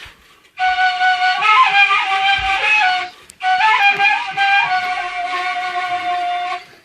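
Kaval, the Turkish end-blown flute, playing two phrases separated by a short gap. Each phrase holds a steady note decorated with quick flicking grace notes.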